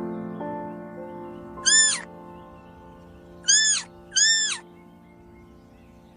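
Kitten mewing three times in short, high-pitched mews, over background music with sustained notes.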